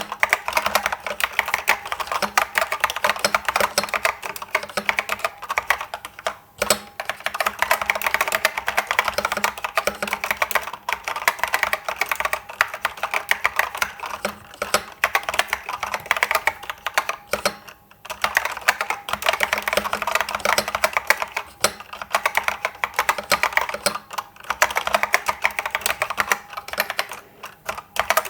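IBM 6112884 'Pingmaster' keyboard with SKCC green Alps switches being typed on quickly and continuously, a dense run of key clicks, with brief pauses about six and a half, eighteen and twenty-seven seconds in.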